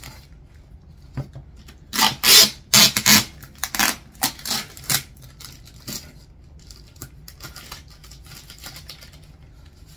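Packaging being handled and torn open: a run of loud scraping, rustling bursts from about two to five seconds in, then lighter scattered clicks and rustles.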